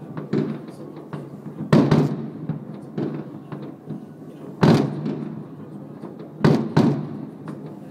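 Fireworks exploding across a city: a series of sharp bangs with echoing tails over a steady low background noise. The loudest come as a pair about two seconds in, a single bang near the middle and another pair near the end, with fainter pops between.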